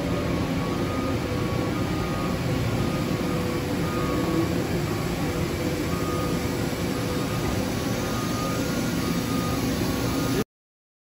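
Steady machine-shop hum of running machinery and fans, with faint steady tones riding on it. It stops abruptly near the end.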